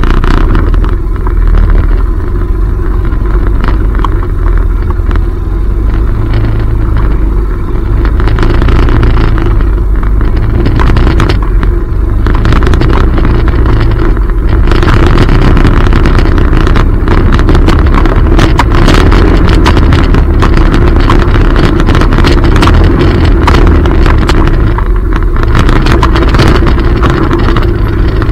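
ATV (four-wheeler) engine running steadily under way on a rough dirt trail, close to the microphone, with frequent knocks and rattles from the bumpy ride that come thicker in the second half.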